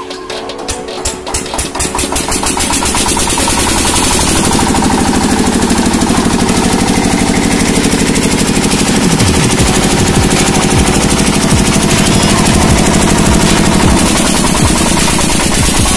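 Single-cylinder diesel engine of a three-phase generator set catching after hand-cranking, its rapid knocking beat speeding up and growing louder over the first few seconds, then running steady.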